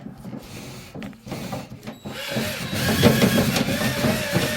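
Cordless drill spinning a dryer-vent cleaning kit's linked flexible rods and brush in the duct. It starts about two seconds in with a dense rattle and a faint wavering whine, after a few light clicks of handling.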